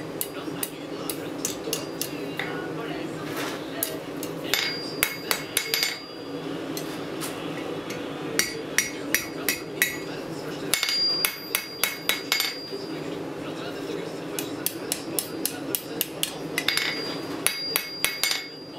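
Blacksmith's hammer striking a red-hot steel bar on an anvil, shaping it into an S-hook. The blows come in quick runs with short pauses between them, and each run leaves the anvil ringing.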